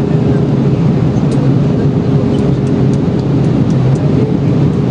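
Steady cabin roar of an airliner in descent, engine and airflow noise heard from a window seat, with a faint steady hum and a few light ticks.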